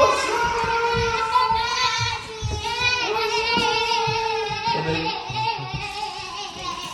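High-pitched singing, with long held notes that waver in pitch.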